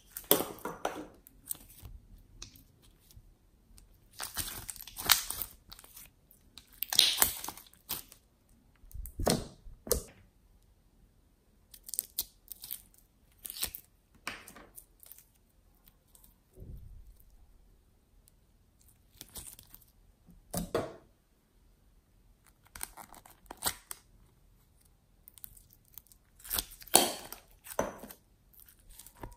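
Slime squeezed, poked and stretched by hand, giving irregular short bursts of sticky crackling and tearing noise with quiet gaps between.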